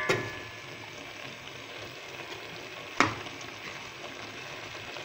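Onion, tomato and wild purslane sauté with bulgur sizzling gently in a metal pot. There is a sharp click right at the start and a single sharp knock about three seconds in.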